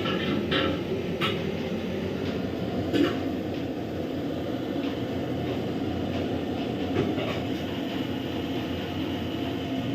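Steady rushing of a large gas burner under a big pot of coconut milk heating toward the boil, with a few light metal clinks.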